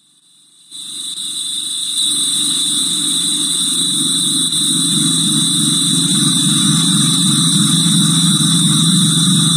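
A dense, steady buzzing drone with two high steady tones above it: the sound of video audio heavily sped up and layered. It fades in over the first two seconds.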